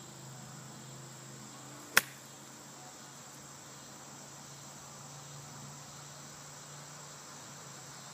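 A golf club strikes the ball once in a chip shot off pine straw, a single sharp click about two seconds in, over a steady drone of insects.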